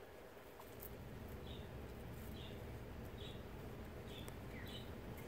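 Wild turkey poults peeping: short high peeps repeated roughly once a second, starting about a second and a half in, over a faint low hum.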